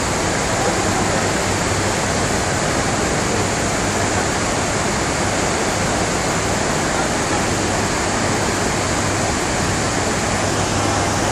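Water pouring over a river weir: a loud, steady, unbroken rush.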